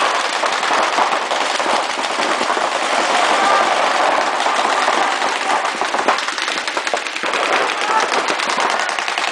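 Several paintball markers firing reballs in rapid, overlapping strings of shots, a dense run of sharp pops with no pause.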